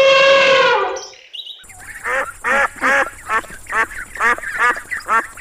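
A long, steady animal call fades out about a second in. After a short pause, a group of birds starts a rapid series of short honking calls, several a second.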